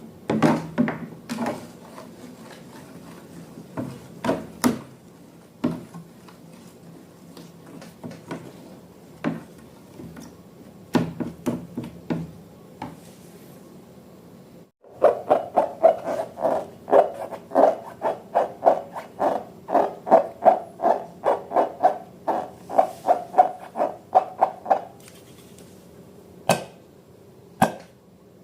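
Hands handling and squishing slime and balloons: scattered taps and squelches, then after a brief break about halfway, a quicker run of them, several a second, before they thin out near the end.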